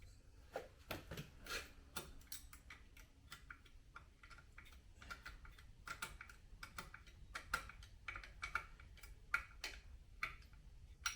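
Faint, irregular small metal clicks and taps of hand tools on the bike while a nut is fitted and tightened.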